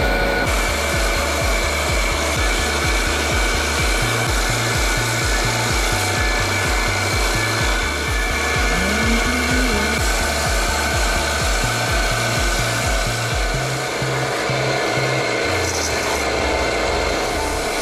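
Background music with a steady, evenly pulsing bass line, over a continuous rough hissing noise.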